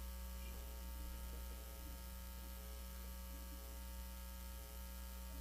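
Steady, quiet electrical mains hum with several thin steady tones above it.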